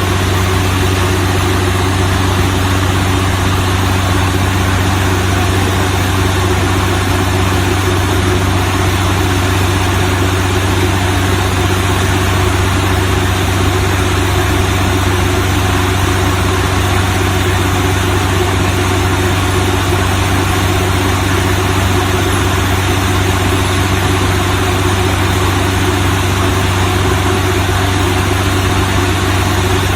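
Small DC motor of a homemade mini drilling rig running steadily, a loud, even hum that does not change.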